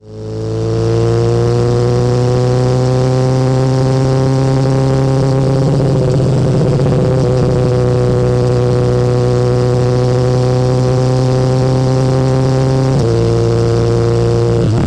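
BMW S1000R inline-four running through its factory Akrapovic exhaust at a steady engine speed. It fades in over the first second, and the pitch dips slightly about thirteen seconds in.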